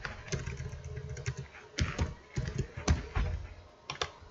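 Typing on a computer keyboard: irregular keystroke clicks in quick clusters with short pauses between.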